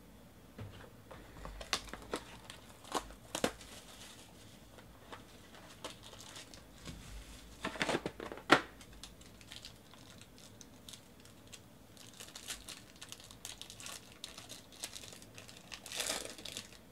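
Foil trading-card pack crinkling and being torn open in the hands, with scattered sharp clicks and a louder cluster of knocks about eight seconds in as the box and pack are handled.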